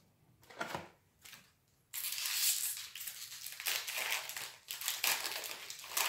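Foil booster pack wrapper being torn open and crinkled, starting suddenly about two seconds in and going on as a dense crackling rustle. A couple of soft taps of cards being set down come before it.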